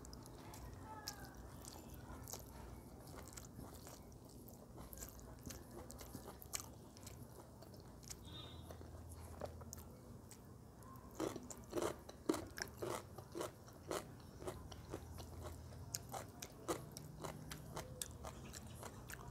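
A person chewing a mouthful of rice and taro-stem curry eaten by hand: faint, close-up wet mouth clicks and smacks, with a run of louder clicks about eleven seconds in.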